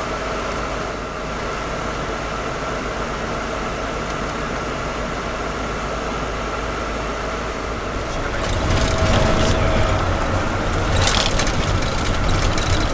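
Van engines running as a convoy of sound trucks moves off, over a steady hum. About eight seconds in, a louder, deeper engine rumble comes in close.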